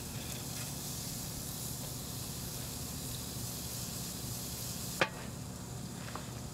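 Beef burger patties sizzling steadily on the grate of a portable Weber grill. About five seconds in there is a sharp click as the grill lid shuts, and the sizzle after it is duller and quieter.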